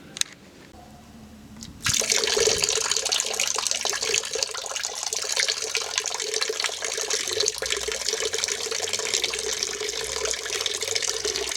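Water running steadily from a tap into a container, filling the quenching water for hardening steel; it starts about two seconds in and is shut off at the end. A short click comes just before it.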